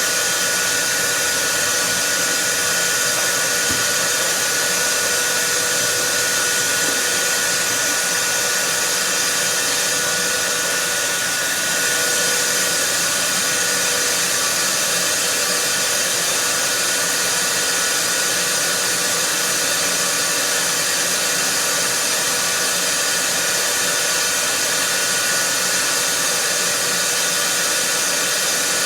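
Vacuum cleaner running steadily: a constant rushing hiss of motor and fan with a steady whining tone, and a brief slight dip in level about eleven seconds in.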